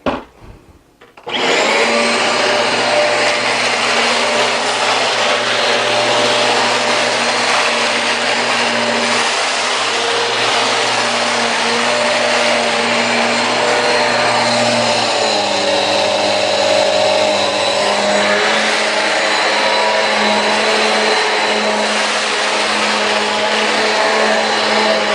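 Eureka AS2113A bagless upright vacuum switched on about a second in and running steadily, its motor hum dropping slightly in pitch about halfway through.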